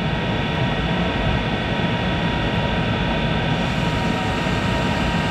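Monarch 10EE lathe running at 1200 rpm while a carbide insert takes a turning cut in 4140 pre-hard steel: a steady machine noise with several high, even whines.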